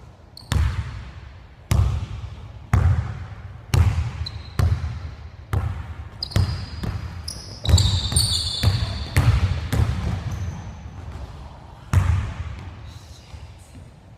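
Basketball dribbled on a hardwood gym floor, roughly one bounce a second, each bounce echoing in the hall. Sneakers squeak sharply on the floor several times in the middle as a player drives.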